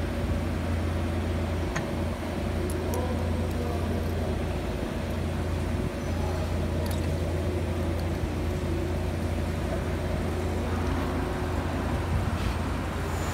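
Steady low electrical-machine hum, with a few faint clicks of metal being handled.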